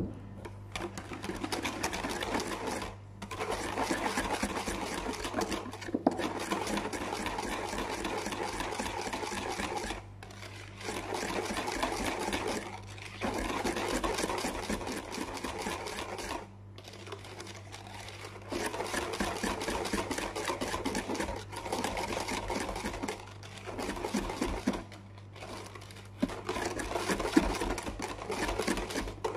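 A utensil beating rapidly in a bowl, mixing sugar into milk: a quick rhythmic clatter and scrape in runs of a few seconds, with short pauses between runs.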